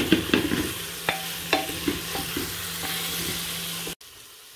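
Masala frying in hot oil in a pan, stirred with a spatula that scrapes and clinks against the pan over a steady sizzle. About four seconds in, the sound cuts abruptly to a much quieter steady hiss.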